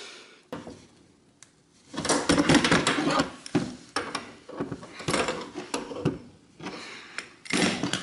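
Adjustable steel wrench clinking and scraping against a tight brass water-supply fitting as it is fitted and turned a little at a time. The clatter comes in runs of sharp metal knocks with short pauses, after a nearly quiet start.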